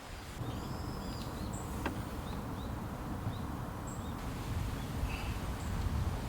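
Steady rush of a glacial meltwater river, with small birds chirping in short calls now and then and a single faint click about two seconds in.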